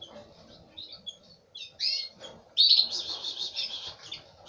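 Canaries chirping: scattered high cheeps and a few short downward-sliding calls, then a longer run of rapid repeated chirps about two and a half seconds in, the loudest part.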